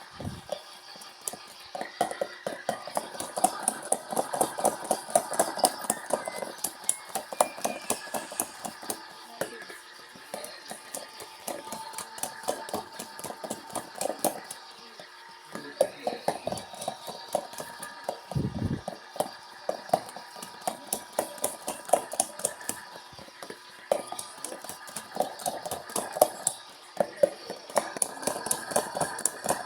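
LG washing machine running its heavy-load wash cycle: the drum turns the load in runs of rapid clattering and knocking, with short pauses between runs.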